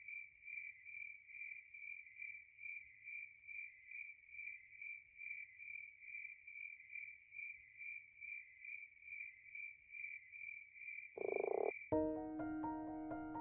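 An insect chirping steadily, one high chirp about two and a half times a second. Near the end a short rush of noise cuts it off and soft piano music begins.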